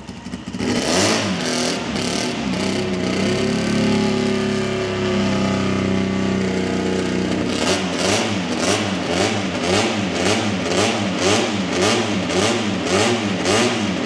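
A freshly restored motorcycle engine fired up for the first time: it catches about half a second in and runs steadily, held at higher revs for a while. From about eight seconds it is blipped up and down about twice a second.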